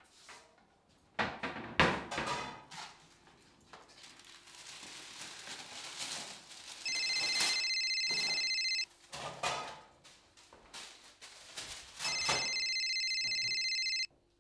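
A phone rings twice with an electronic trilling ring, each ring about two seconds long. Before it, a few knocks and clatter, like a spoon and bowl being handled.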